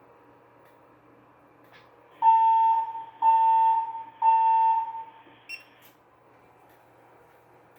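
Fire alarm system sounding three electronic alert tones about a second apart, each held for roughly a second and then fading, followed by one short high beep.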